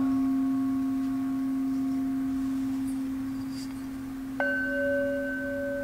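Singing bowls ringing: a low steady tone holds throughout while higher tones from an earlier strike fade. About four and a half seconds in, a small hand-held metal singing bowl is struck once with a mallet and rings on with a clear, bright tone.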